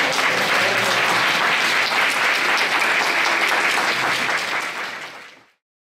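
Audience applauding: dense, steady clapping from many people that fades and stops about five seconds in.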